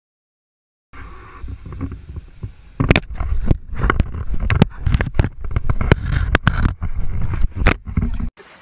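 Low rumbling handling noise with many sharp knocks and scrapes on a small camera's body as an animal mouths and tumbles the camera. It starts about a second in and cuts off suddenly near the end.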